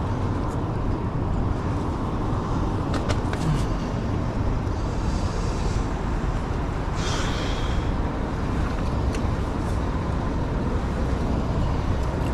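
Steady road traffic and vehicle noise, with a few faint clicks and a short high hiss about seven seconds in.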